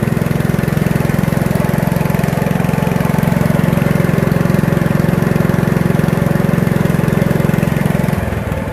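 Kawasaki 14 hp engine of a Rabbit RM82 ride-on mower running steadily, easing off slightly near the end.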